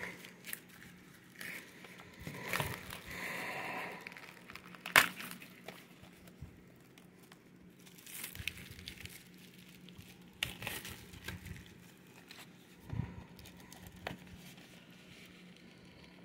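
Thin plastic shrink wrap being picked at and peeled off a Blu-ray case by fingers: on-and-off crinkling and tearing, with a sharp click about five seconds in.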